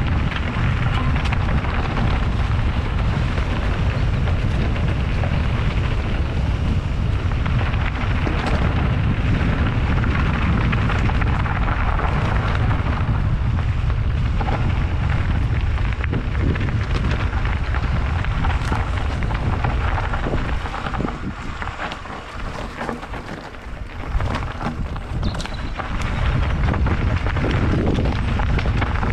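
Wind buffeting a helmet-mounted GoPro 8 as a mountain bike rides a dirt trail, with the tyres rolling and scattered clicks and rattles from the bike over the ground. The wind eases for a few seconds about two-thirds through, then picks up again.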